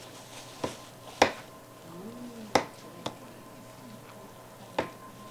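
A utensil stirring stiff oat-and-flour dough in a glass mixing bowl, clinking sharply against the glass five times, the loudest a little over a second in.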